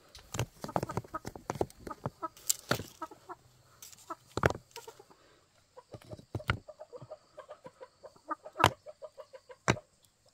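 Chickens clucking in short runs of quick notes, with a few sharp knocks in between.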